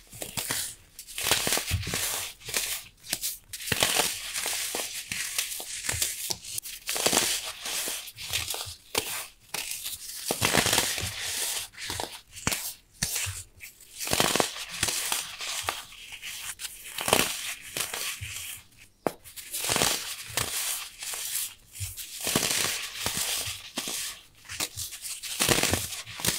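Pressed baking soda bricks crushed and crumbled by hand, a dense run of sandy, crispy crunching and crackling as the chunks break apart into powder.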